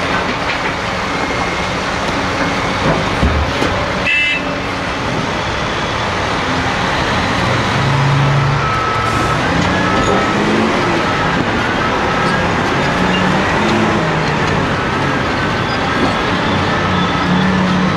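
Heavy earthmoving machinery working: a Caterpillar 385C hydraulic excavator's diesel engine and hydraulics under load alongside a Caterpillar 773E off-highway dump truck. The engine note rises and falls repeatedly from about eight seconds in, as the machines work under changing load. A short, high beep is heard about four seconds in.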